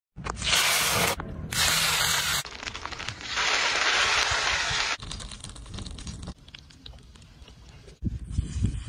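Oil sizzling on a stone slab heated by a wood fire, with a fish fillet frying in it. There are three loud hissing spells, each starting and stopping abruptly, then a quieter crackling sizzle and a low thump near the end.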